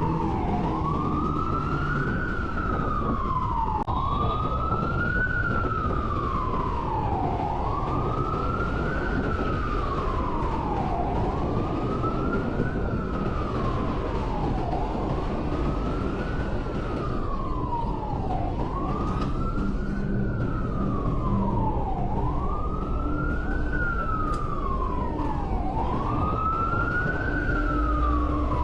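Emergency vehicle siren wailing, its pitch rising and falling slowly about once every three and a half seconds, over a steady low rumble of street traffic.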